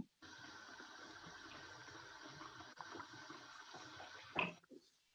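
Diet Coke hissing and fizzing in a hot pan of spiced chicken and vegetables just after it has been added, a steady sizzle. It cuts off suddenly near the end, just after a short louder sound.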